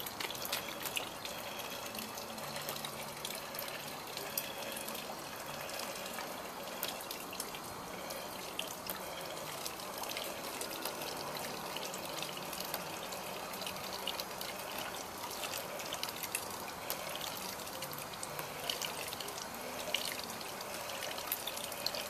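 Water from a small pump spurting out of four little tubes and splashing and trickling steadily into a plastic-lined reservoir, with many small splashes.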